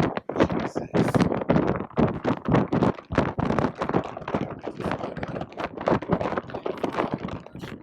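Something flapping and rattling hard in strong wind: a fast, irregular run of snaps and knocks, several a second.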